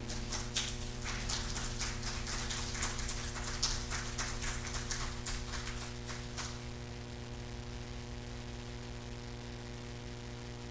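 Light scattered applause from a small congregation, thinning out and stopping about six seconds in, over a steady low hum from the electric guitar's amplifier.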